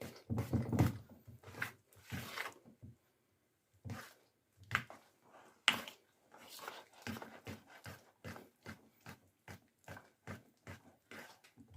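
Thick glue-and-boric-acid slime being stirred in a bowl: a run of short wet squelches and sticky pops, irregular at first, then about two or three a second in the second half.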